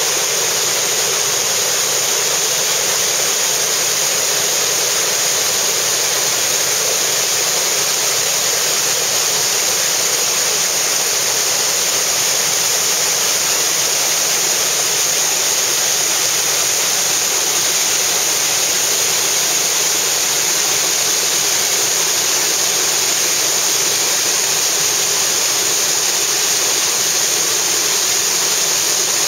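Waterfall pouring over rock and churning into white water below: a loud, steady rush.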